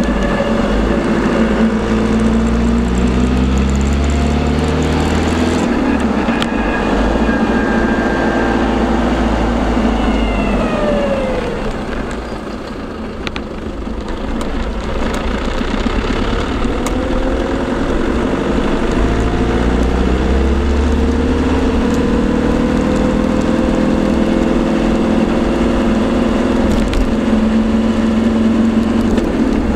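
Land Rover LT230 transfer box whining while the vehicle is driven, heard over the engine and road noise with sound-deadening fitted. The whine's pitch follows road speed: it falls as the vehicle slows about ten seconds in, goes briefly quieter, then climbs again as it picks up speed.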